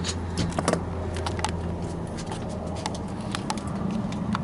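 Irregular light clicks and taps of hands and tools handling a van seat and its base, over a steady low hum.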